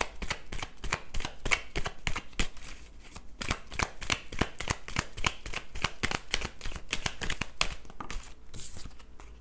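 Deck of oracle cards being shuffled by hand: a quick, uneven run of card slaps and riffles, several a second, with a short pause about three seconds in.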